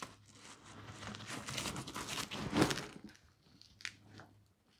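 Rustling and crinkling of a Mission Darkness X2 Faraday duffel bag's fabric as it is handled and lifted by its handles, loudest about two and a half seconds in, followed by a couple of faint clicks.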